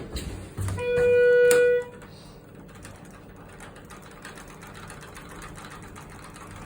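An elevator's electronic signal beep: one steady tone about a second long, then a quieter steady hum with faint ticking.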